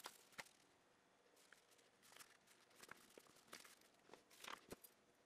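Near silence, broken by faint rustles and a few light clicks of a sheet of paper being handled.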